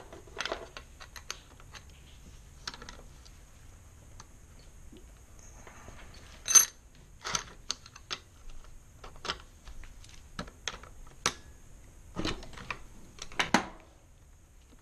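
Irregular metal clicks and clinks of hand tools and parts being handled while a 66cc motorized-bike engine is taken apart. The loudest is a sharp clank about six and a half seconds in, with a few more clustered near the end.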